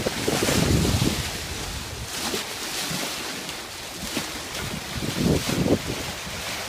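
Sea water rushing and splashing along a sailing yacht's hull as it moves under way, with wind buffeting the microphone; the buffeting is strongest in the first second and again about five seconds in.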